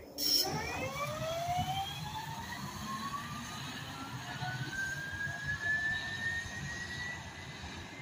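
Proterra Catalyst E2 battery-electric bus pulling away, its UQM electric drive giving a whine that climbs steadily in pitch for about seven seconds as the bus accelerates. A short knock comes just at the start, and a low traffic rumble runs underneath.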